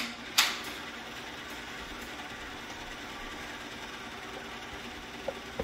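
A sharp click about half a second in, then a film projector running steadily.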